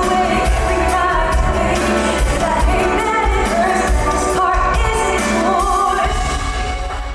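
Live pop song played through a concert hall's sound system: a woman singing a bending melodic line over a heavy, steady bass beat.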